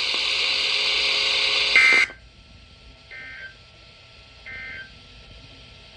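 Emergency Alert System end-of-message signal on a NOAA Weather Radio broadcast: three short bursts of buzzy two-tone digital data, about a second apart, the first loud and the next two fainter. A steady radio hiss before the first burst cuts off suddenly as it ends.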